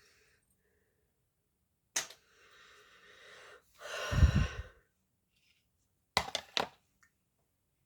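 A sharp click, a faint intake of breath, then a loud heavy sigh or breath straight onto the microphone, followed by a quick run of three or four clicks or taps.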